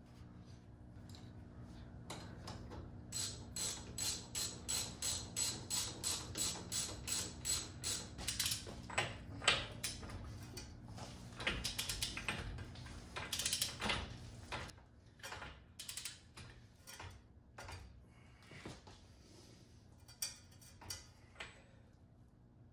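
Hand ratchet wrench clicking in quick, even strokes, about two to three a second, as bolts on the front suspension are run down; past the middle the strokes thin out to a few scattered clicks.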